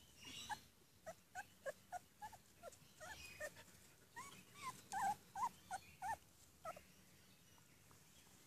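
Nearly three-week-old puppies whimpering: a run of about fifteen short, high squeaks, several of them bending downward in pitch. The squeaks stop about seven seconds in.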